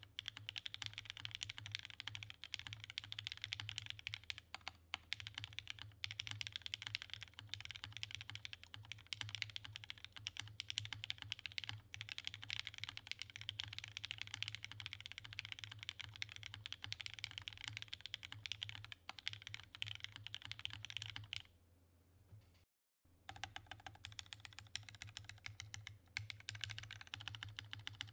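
Fast continuous typing on a custom mechanical keyboard with lubed Cherry MX Hyperglide Red linear switches on a polycarbonate plate, topped with GMK keycaps: a dense stream of keystroke clacks. The typing stops for about a second and a half near the three-quarter mark, then resumes on the modifier keys.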